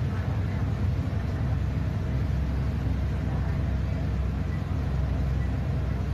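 Bus engine running with a steady low rumble, heard from inside the passenger cabin as the bus drives through floodwater, with a continuous wash of noise over it.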